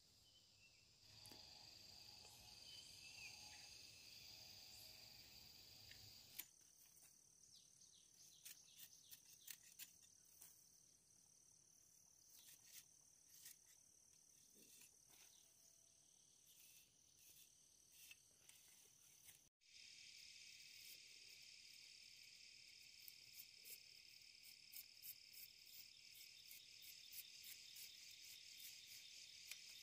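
Faint, steady high-pitched insect chirring, with scattered light clicks and taps over it. The sound changes abruptly about six seconds in and again about twenty seconds in.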